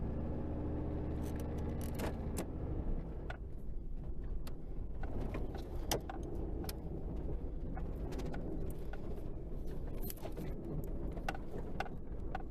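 Car engine idling steadily, with scattered clicks and light rattles over it.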